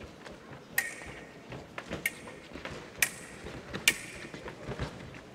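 Steel foil blades striking each other during a fencing exchange: four sharp clicks about a second apart, each with a short ring, over soft footfalls on the piste.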